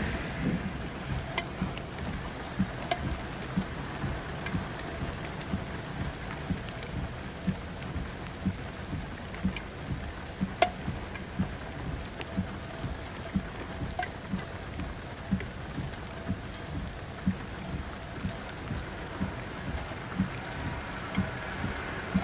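Heavy rain from a supercell thunderstorm falling steadily, with the tail of a thunder rumble fading out in the first second. A soft thump repeats a little more than once a second, with a few sharp ticks of drops hitting something hard.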